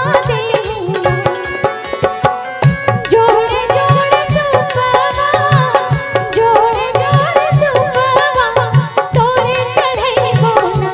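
Live Chhath devotional song: an ornamented melody with wavering pitch over a steady hand-drum rhythm of tabla type.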